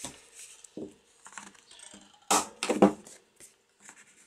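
Thick cardstock being handled and fitted into a corner-rounder punch: rustling and small taps, with a louder cluster of sharp knocks about two and a half seconds in.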